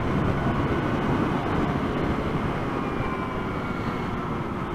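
Motorcycle engine running steadily while riding, with wind and road noise on the helmet microphone.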